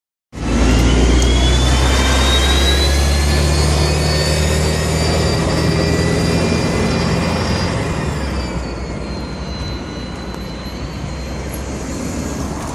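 Volvo Olympian double-decker bus's diesel engine pulling away under load, with a loud, high turbo whistle over the engine. The whistle rises for the first few seconds, then settles to a steady tone, and the engine note drops back a little past halfway.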